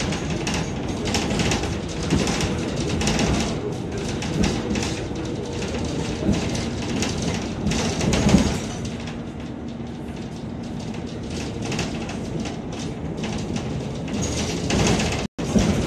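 Ride noise inside a moving city bus: steady engine and road noise with rattling, and a faint steady hum through the middle. The sound cuts out for a moment near the end.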